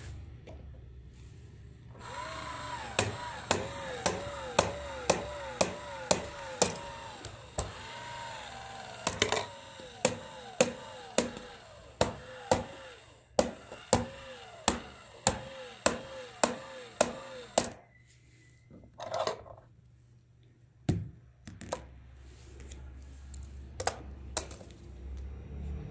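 Plastic toy football coin bank running its kicker mechanism: a small motor whirring with a sharp plastic click about twice a second and a repeating wavering tone over it for about sixteen seconds, then it stops. A few separate knocks follow near the end as the toy is handled.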